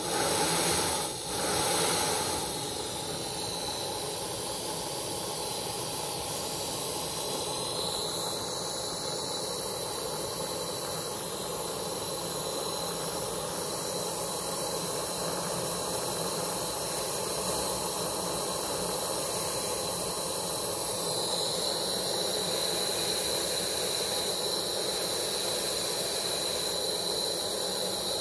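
Steam hissing steadily from an Aster BR 96 live-steam Gauge 1 model locomotive, with a thin high whistle running through the hiss. Two short louder surges of steam come in the first two seconds as a small brass valve wheel on the cab is turned. The hiss grows a little louder about two-thirds of the way in.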